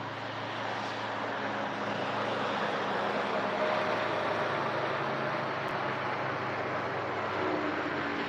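Motorboat passing across the lake, its engine and hull noise swelling to the loudest about halfway through and then slowly fading.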